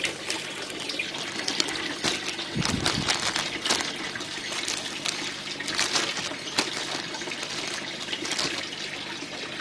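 Clear plastic zip bag crinkling and rustling as hands press and shift the soaked rice seed inside it, with many small crackles and a dull bump about two and a half seconds in.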